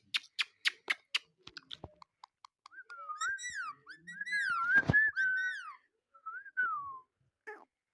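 Indian ringneck parrot whistling a wavering tune that slides up and down, after a run of short sharp clicks in the first couple of seconds. A single thump sounds about five seconds in.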